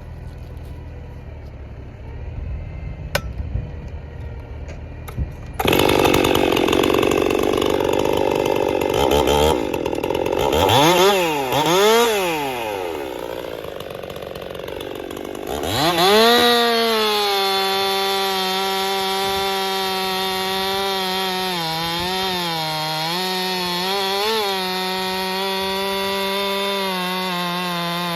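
Ported Stihl MS261 M-Tronic chainsaw with a 25-inch bar and full-skip 3/8 chain, free-running without cutting. It comes on loud about six seconds in and is revved up and down twice. From about sixteen seconds it is held at wide-open throttle in a steady high whine with slight dips.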